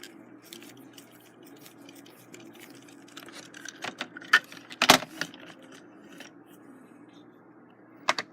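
Small clicks, rattles and knocks of batteries being handled and fitted into the battery compartment of a plastic Trackmaster toy train engine. A cluster of clicks falls in the middle, with the loudest knock about five seconds in and a couple more clicks near the end, over a faint steady hum.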